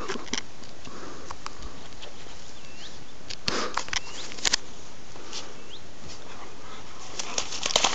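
German Shepherd dog snuffling and rustling with its nose down in moss and grass, in short scattered bursts that grow busier near the end.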